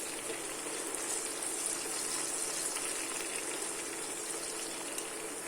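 Tomato and onion mixture sizzling in oil in a pot on the stove, a steady soft hiss.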